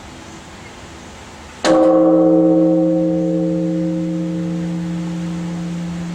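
Kan'eiji time bell, a large Japanese bronze temple bell (bonshō), struck once about a second and a half in with a wooden beam, then ringing on with a low, slowly fading hum.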